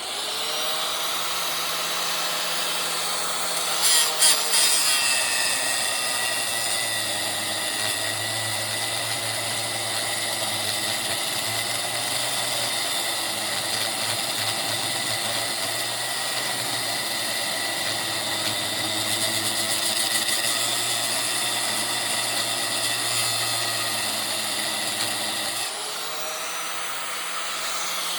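Angle grinder running and cutting metal, its motor whine sagging in pitch under load and recovering. A few sharp clatters about four seconds in.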